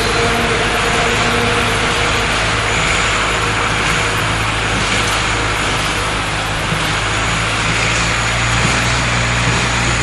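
Tractor engine running steadily under load while pulling a hay baler that is picking up and baling hay, the baler's machinery churning along with it.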